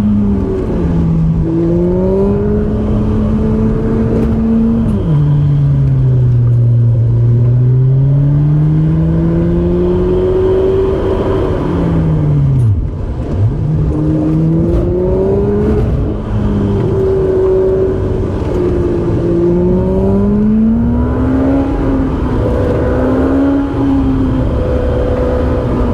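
A car engine driven hard, its pitch rising and falling as it accelerates and slows. About five seconds in the pitch drops suddenly, as at a gear change, and near the middle it falls away steeply before climbing again.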